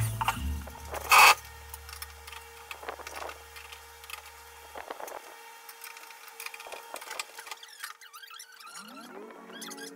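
Knocks and light clicks from hands working on white laminated wall cabinet doors, with one loud knock about a second in. Background music comes in near the end.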